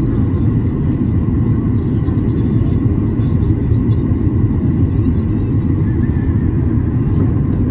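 Steady low cabin roar inside a Boeing 737-800 on approach, from its CFM56-7B turbofan engines and the airflow over the fuselage, with a faint steady whine above it.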